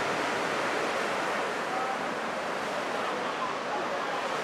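Sea surf washing in steadily onto a shingle beach, a continuous wash of noise with no distinct breaks.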